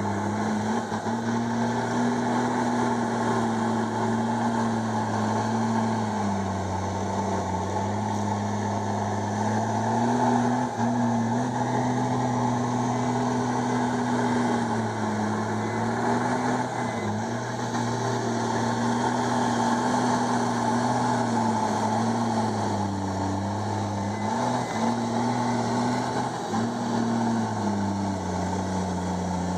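Komatsu D51EX bulldozer's diesel engine running hard under load. Its note sags and picks up again several times, about 6, 16, 23 and 28 seconds in.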